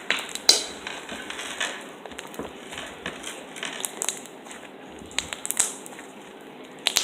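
Slime being squished and stretched in the hands, with irregular small pops and crackles, the loudest about half a second in.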